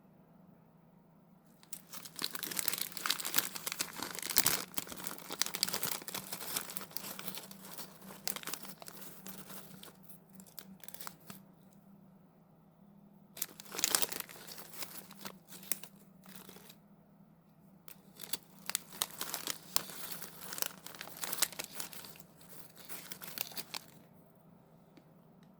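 Crinkly snack packaging being handled and torn open in several bursts, the first and longest starting about two seconds in, with a faint steady low hum underneath.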